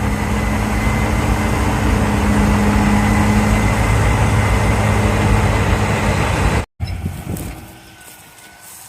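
Heavy vehicle engine running steadily with a low hum and a faint high whine. It cuts off abruptly about two-thirds of the way in, leaving much quieter outdoor background.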